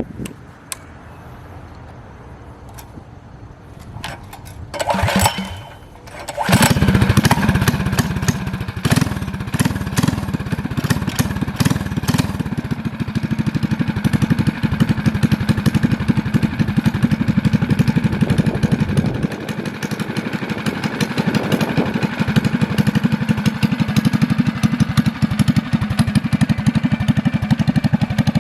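Predator 212cc single-cylinder four-stroke engine on a mini bike, with a stage 1 kit (K&N-style air filter, bigger jet, custom header and RLV muffler). It is started on its recoil starter, catches about six and a half seconds in, and then runs steadily.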